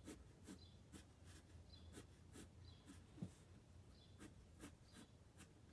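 Faint scratching of a pencil on paper: short strokes at about two to three a second as lines are gone over to darken them.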